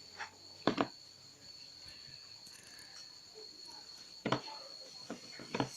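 Homemade glue-and-Tenys Pé slime being stirred with a spoon in a container: a few short sticky clicks and smacks, as the slime starts to pull away from the sides.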